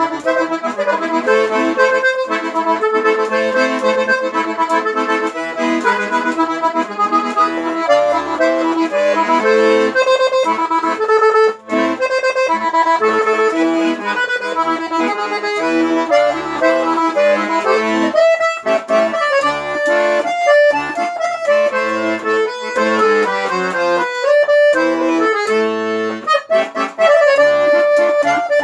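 Solo accordion playing an instrumental tune: a melody line over chords, with short bass notes punctuating it and a brief break about a dozen seconds in.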